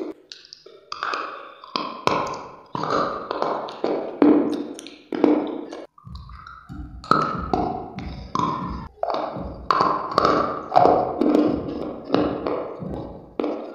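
Close-miked eating: a person bites and chews a hard grey-brown block, giving short crisp crunches about one every second. There is a brief pause and then a heavier bite about six seconds in.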